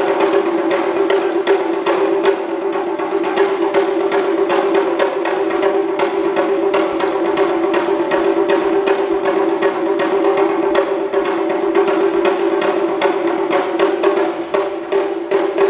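Taiko performers' wooden bachi sticks clicking in a quick, light rhythm on the drums' wooden parts, over a steady held tone; the deep drumheads are not struck until just after this passage.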